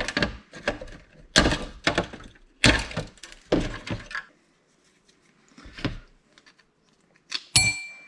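Parts of a receipt printer being handled during disassembly: a run of knocks and clattering thunks for about four seconds. Near the end comes a sharp metallic clink that rings briefly, like a small metal part striking something hard.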